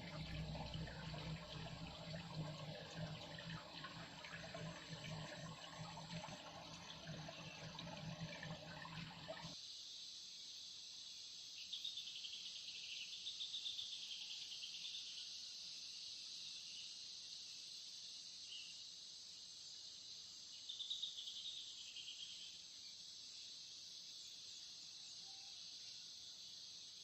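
River water rushing for about the first ten seconds. After a sudden cut it gives way to a steady chorus of insects chirping, high-pitched and continuous.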